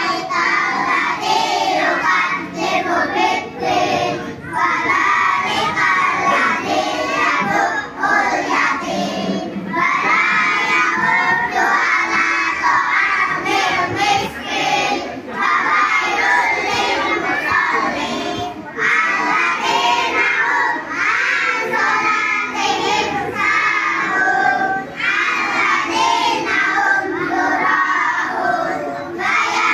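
A group of young children singing a song together into a microphone, in phrases with short pauses between them.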